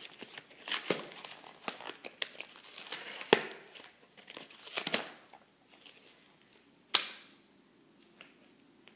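Cardboard being torn and crumpled by hand in a run of rips and crinkles, then a single sharp crack about seven seconds in, after which it goes quiet.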